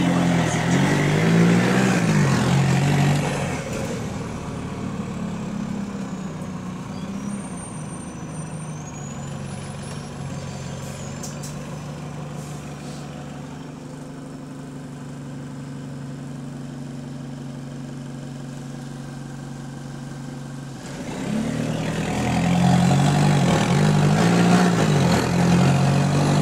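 Bus diesel engine with a burst exhaust, heard from inside the bus. It pulls away loudly with its note rising and falling through the gear changes, drops to a quieter steady running note after about three seconds, then pulls away loudly again about five seconds before the end.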